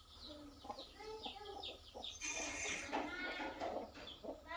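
Domestic chickens clucking and calling over and over, with high chirps falling in pitch, plus a brief rustle about two seconds in.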